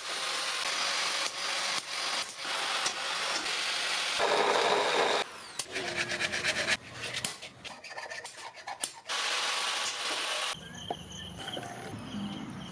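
Coarse rasping and rubbing noise of tool work in uneven stretches, stopping and starting several times. About ten seconds in it cuts to quieter outdoor background with insects chirping steadily.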